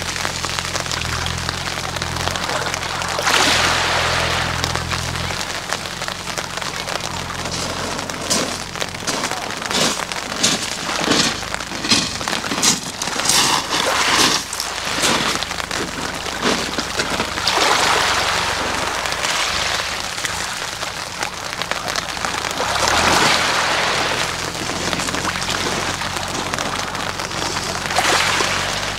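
Small waves washing up a pebble beach and drawing back, each wash swelling and fading every few seconds; in the middle the backwash sets the rounded stones rattling in a quick clicking clatter.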